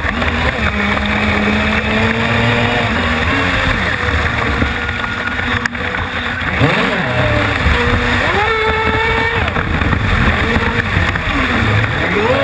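RC boat's brushless electric motor whining under throttle, heard onboard, its pitch gliding up and down through the turns and peaking highest about two-thirds of the way through. Under it is a steady rush of water and spray against the hull.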